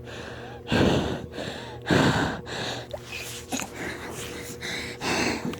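A person breathing heavily and out of breath: two loud gasping breaths about a second apart, quieter breathing, then another loud breath near the end.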